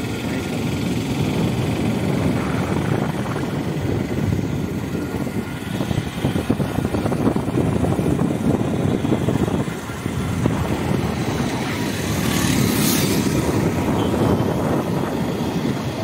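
Motorcycle engine running while riding along a mountain road, mixed with wind rumbling on the microphone, and a brief hiss about thirteen seconds in.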